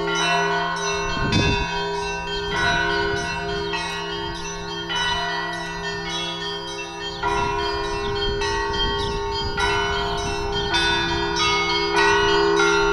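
Orthodox church bells ringing: many bells struck in quick succession over the steady hum of larger bells.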